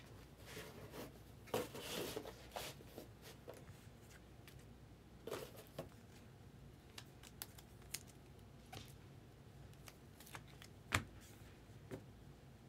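Topps Chrome trading cards and their packs being handled: quiet rustling in the first two or three seconds, then scattered light clicks and taps of cards, the sharpest about eleven seconds in.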